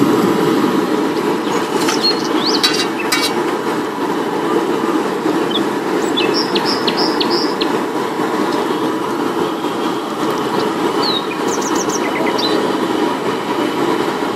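Egg frying in oil on a large flat iron griddle (tawa): a steady frying noise with a low rushing undertone. A few light, high clinks come about six to seven seconds in.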